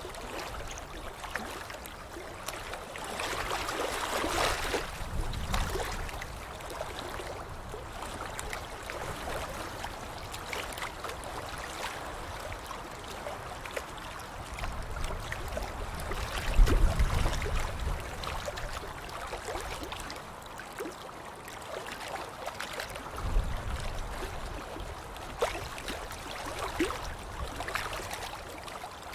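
Water sloshing and splashing continuously, with many small drips and plops; heavier surges about 4 seconds in, around 17 seconds (the loudest) and near 23 seconds.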